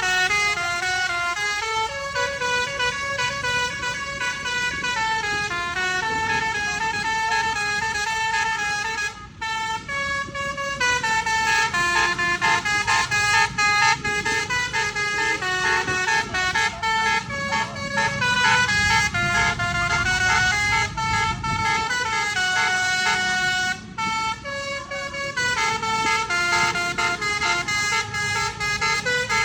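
Indonesian bus 'telolet' multi-tone musical air horn playing a long tune of stepping notes, with short breaks about nine and a half and twenty-four seconds in.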